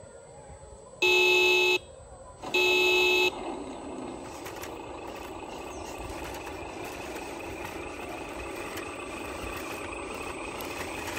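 Two horn toots from an RC truck, each just under a second long, followed by a steady mechanical running sound.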